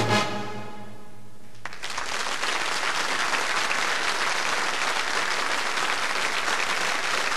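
A brass band's last chord of a march ringing out and fading, closed by a short sharp hit about a second and a half in, then an audience breaking into steady applause.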